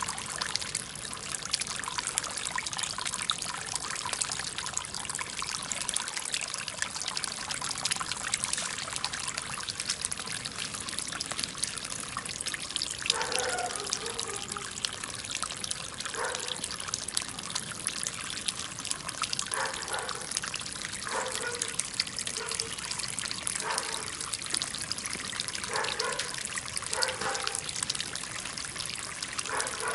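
Steady trickling and splashing of water from a stoneware-jar garden fountain falling into its small pond. From about halfway through, a few short pitched calls sound in the background.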